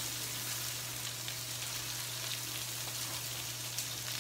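Breaded chicken and salmon frying in pans on low heat: a steady sizzle with scattered small pops.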